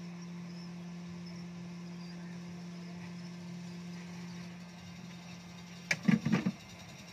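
Hot air rework gun's blower running with a steady hum while it heats a phone motherboard to solder on a new network IC. About six seconds in, a few sharp knocks as the gun is set down.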